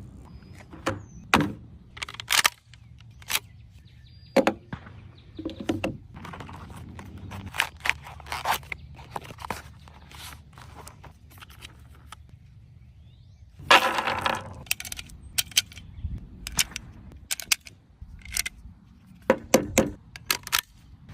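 MP5-style submachine gun chambered in .22 LR firing at a range: sharp single shots at irregular intervals. About two-thirds of the way through comes a quick burst of several shots, and near the end a rapid string of three or four.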